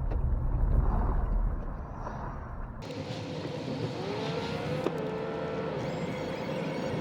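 Vehicle rumble, deep and loudest about a second in. About three seconds in the sound changes abruptly to a brighter one with steady tones and a rising whine.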